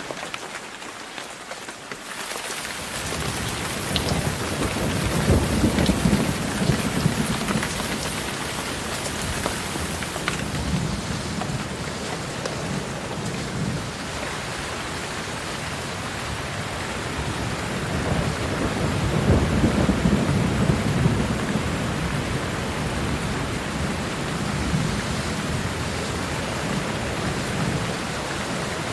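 Steady rain falling, with rolling thunder: low rumbles swell up twice, about five seconds in and again near twenty seconds.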